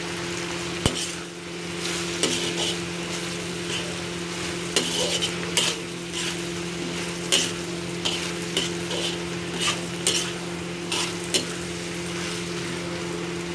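Chopped cabbage, onion and tomato frying in a pan with a steady sizzle, stirred with a utensil that scrapes and clicks against the pan every second or so.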